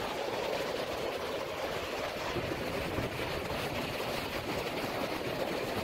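Steady, even wash of surf breaking on the beach, with wind blowing over the microphone.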